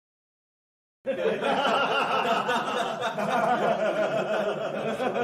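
A crowd laughing, many voices at once, starting suddenly about a second in.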